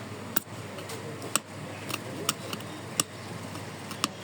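Five sharp, separate clicks and taps of small hard parts being handled, spaced unevenly, over a steady background hum.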